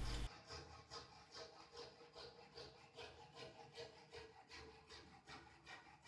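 Hand saw cutting thin plywood in faint, even strokes, about three a second, trimming the overhanging edge of a plywood back panel glued onto a cabinet.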